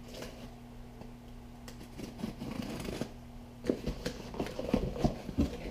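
Cardboard box being cut open and its packaging handled: irregular scraping and rustling, with louder sharp knocks and rustles in the last two seconds, over a faint steady hum.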